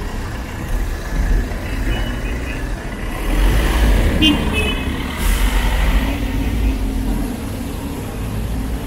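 City street traffic, with vehicle engines passing and a steady hiss from tyres on wet road. A brief high-pitched tone sounds a little after four seconds in.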